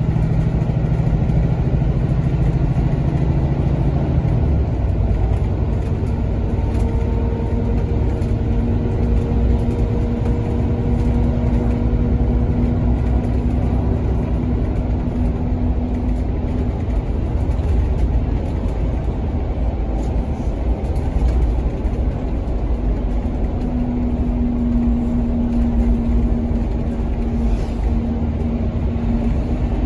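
Scania Fencer bus's DC07 engine, a Cummins-based 6.7-litre six, with its ZF Ecolife automatic gearbox, running under way as heard from inside the passenger saloon: a steady low rumble with road noise. A strong low hum drops away about four seconds in, and a faint whine comes and goes.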